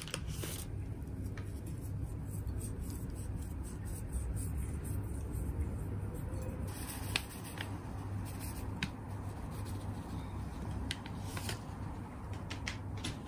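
Steady low hum with scattered light clicks and taps, from seasoning being added to sliced tomatoes: a pinch of salt, then dried parsley. The clicks come mostly in the second half.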